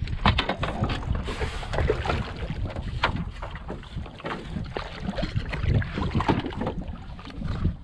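Wind buffeting the microphone over water lapping and splashing against a small boat's hull, with scattered short splashes and knocks throughout.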